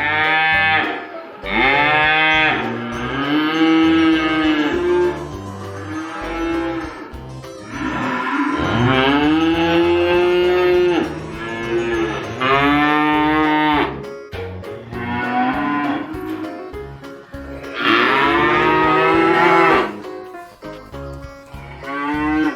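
Cows mooing: a series of long, drawn-out moos, about half a dozen, each lasting one to three seconds with short pauses between them.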